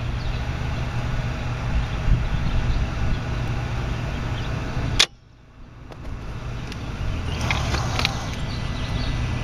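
Steady low mechanical hum under a wind-like noise. About halfway through, a sharp click cuts the sound off almost completely, and it fades back up over the next couple of seconds. A few small clicks or rattles come near the end.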